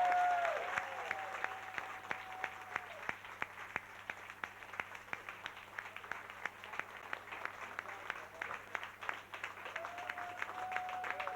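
Club audience clapping after a stage act, the applause easing after a couple of seconds and picking up again near the end, with a few voices whooping at the start and near the end.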